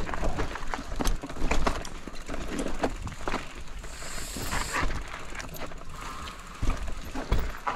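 Haibike SDURO FullNine e-mountain bike riding down a rocky, leaf-covered dirt trail: tyres rolling over dirt and stones, with many sharp clicks and knocks from the bike rattling over rocks and roots, over a low rumble. A short hiss comes about four seconds in.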